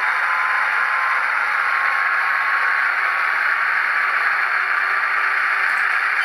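ESU LokSound Select sound decoder in an HO-scale SD40-2W model locomotive playing its EMD diesel engine sound through the model's small speaker: a steady, even drone with no clear pitch, mostly in the middle and upper range.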